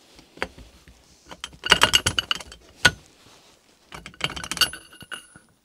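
Steel parts of a lathe's 5C collet drawbar and handwheel assembly clinking and rattling as it is taken apart by hand. A burst of rattling clinks comes about a second and a half in, then a single sharp clink, then another burst near the end with a brief metallic ring.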